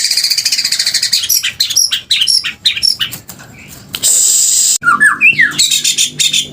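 White-rumped shama singing in the rapid, harsh 'muntah beling' style: fast rattling trills and sharp clicking notes, a loud harsh phrase about four seconds in, then quick whistled glides and more fast trills.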